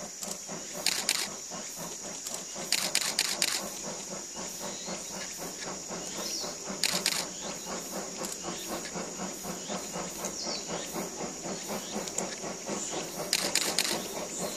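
Rapid bursts of camera shutter clicks, four clusters in all, over a steady high insect drone. Under them runs a faint, even beat, which fits the distant exhaust of the C57 1 steam locomotive approaching.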